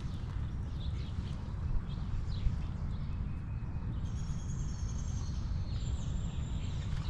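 Wind buffeting the microphone as a steady low rumble, with birds chirping in the background: short chirps in the first couple of seconds, then a high thin song from about four seconds in.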